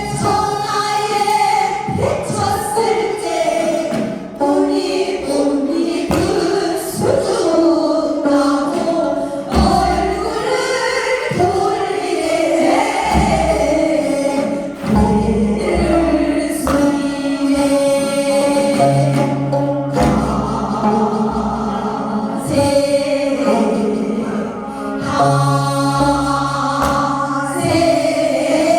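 Korean folk song (minyo) sung with vibrato over instrumental accompaniment with a steady bass line.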